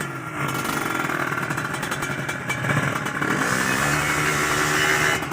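Motorcycle engines running, with one revving up and rising in pitch a little past halfway.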